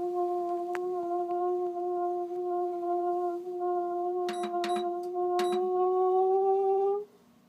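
Toyotomi LC-32D kerosene fan heater giving off a loud, steady humming tone with overtones, its pitch creeping slightly upward before it cuts off abruptly near the end; several sharp clicks come midway. The owner traces the noise to the burner running short of air: a dust-clogged fine mesh in the rear filter, little oxygen in the room and a low flame setting.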